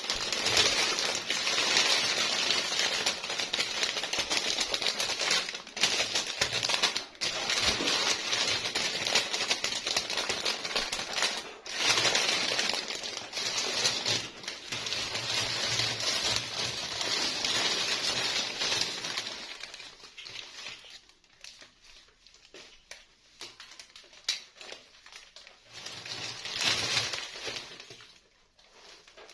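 Toy packaging being handled and opened by hand: dense crinkling and rustling with many small clicks for about twenty seconds, then sparser taps and a short burst of rustling near the end.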